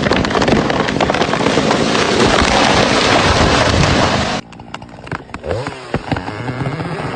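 A dense, crackling noise full of sharp cracks that cuts off abruptly about four seconds in, followed by a small engine revving up and down, its pitch rising and falling.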